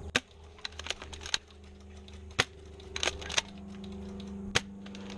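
Scattered single sharp snaps and clicks of airsoft guns firing, irregular and unevenly loud, about a dozen over five seconds, over a faint steady hum.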